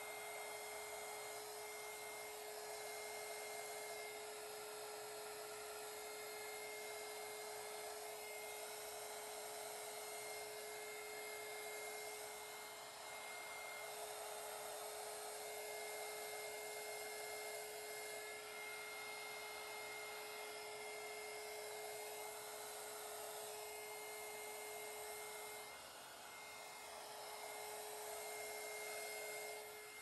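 Handheld craft heat gun running steadily, a fan whir with a constant whine, blowing hot air over wet epoxy resin to spread white alcohol ink into lacy sea-foam waves.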